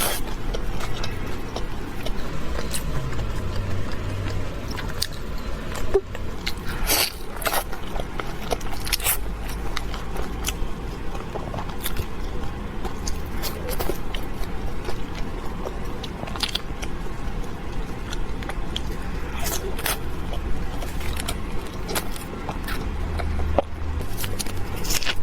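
Eating sounds: chewing with sharp crunchy bites every few seconds, over a steady low rumble.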